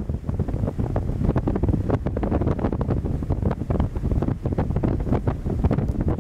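Wind buffeting the camera microphone: a constant low rush with rapid, irregular flutter.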